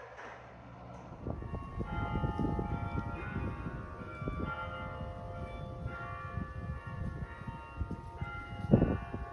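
Several bells ringing together, their overlapping tones struck again and again from about a second in, over a heavy low rumble.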